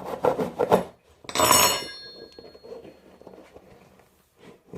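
Air hissing out of a dodgeball's leaking inner bladder as the ball is handled. After a few quick scratchy rubbing strokes, a short loud hiss with a thin squeal comes about a second in, then fades away.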